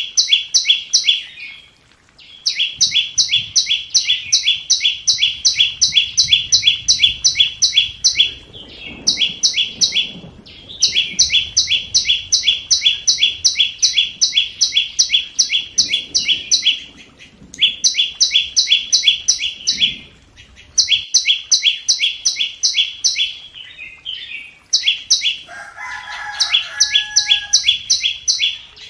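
Flowerpecker lure call: runs of rapid, evenly repeated high chirps, several a second, each run lasting a few seconds with short breaks between. Near the end a separate, lower call sounds briefly under the chirping.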